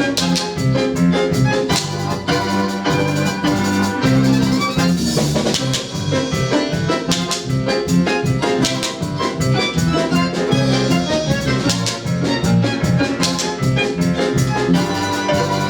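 Lively instrumental music: a quick, steady beat of bass notes and chords with sharp percussive strikes running through it.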